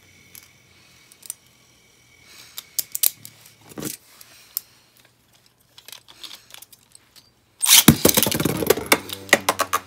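A few faint clicks and knocks of plastic Beyblade Burst tops being picked out of a plastic stadium, then, a little over two-thirds of the way in, two tops are launched and clash: a sudden loud, dense clatter of rapid hits and scraping over a steady whir of spinning.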